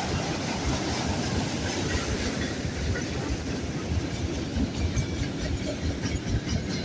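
Freight train rolling past close by: a steady rumble and the noise of steel wheels on the rails as the cars go by.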